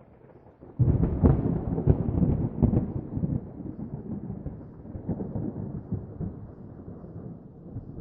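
A thunderclap: a sudden loud crack less than a second in, crackling peals for about two seconds, then a deep rumble that slowly fades.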